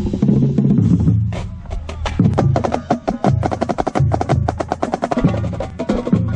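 Marching band percussion section playing a fast passage on its own: rapid, sharp drum and stick strokes over repeated low drum notes, with a brief drop in loudness about halfway through.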